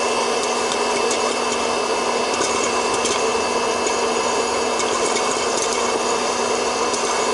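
Proctor Silex hot-air popcorn popper running: the fan motor makes a steady whirring hum, and scattered sharp pops of kernels bursting come through it every so often.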